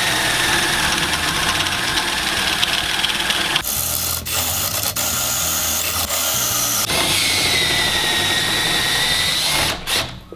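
Cordless drill boring a 25 mm hole into the end grain of a timber post with a speedbore spade bit, the motor whining under load. The sound changes for about three seconds in the middle, then the whine resumes and stops shortly before the end.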